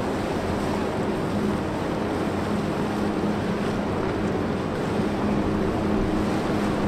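Harbour tug's diesel engines running with a steady low drone over a wash of water, the drone easing in the middle and strengthening again near the end.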